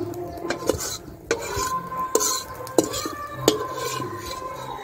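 Metal spatula scraping around a blackened wok to scoop out fried scrambled egg, with several sharp clanks at uneven intervals.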